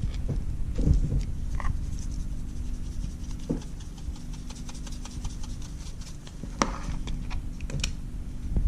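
Light scattered taps, rubs and clicks of small containers and supplies being handled, with glitter being added to the slime mixture, over a low steady hum.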